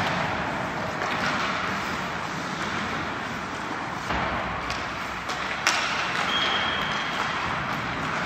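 Hockey skates scraping and carving across rink ice, with a few sharp clacks of stick on puck.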